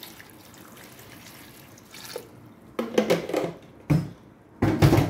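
Water poured from a jug into a metal pot of cubed yam, a steady splashing rush that stops about two seconds in. It is followed by a few loud, sudden knocks and clatters.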